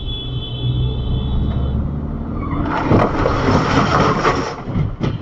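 Heavy vehicle's engine rumbling inside the cab, with a high, steady squeal for the first couple of seconds. About three seconds in there is a loud rushing hiss that lasts a second and a half.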